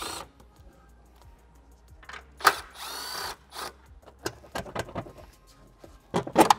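A Milwaukee Fuel cordless power tool whirring in short bursts as it spins the airbox nuts off, the longest burst about two and a half seconds in. Near the end come a few loud knocks as the plastic airbox is worked free and lifted out.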